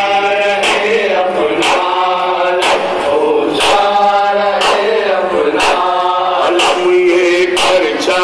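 Men chanting a Muharram lament (noha) in drawn-out, repeated sung phrases, with a sharp beat about once a second.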